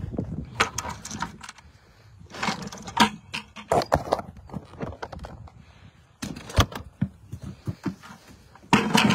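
Handling noise on a phone's microphone: irregular knocks, clicks and rustling as the phone is carried and moved about in a hand.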